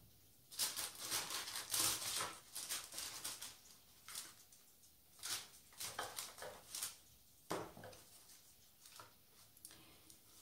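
Paper and packaging rustling and crinkling in several irregular short bursts as cosmetic products are handled, with quiet gaps between.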